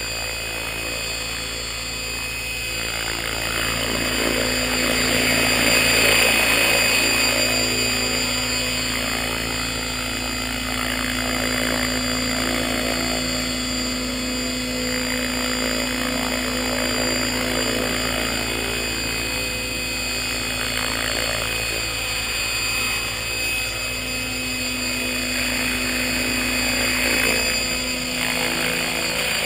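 Align T-Rex 600 radio-controlled helicopter's motor and rotor running with a steady high whine on the ground, then lifting off near the end. The test flight follows repairs to its vibration problems.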